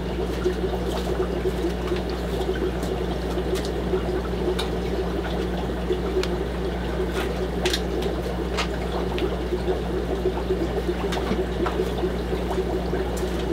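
Water running and trickling steadily, with a steady low hum underneath and a few faint clicks.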